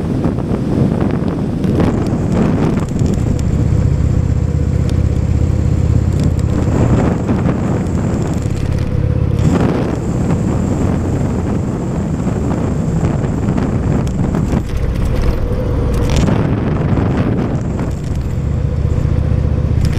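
Indian motorcycle's V-twin engine running while riding, its note shifting a few times as the speed changes, with wind buffeting the microphone.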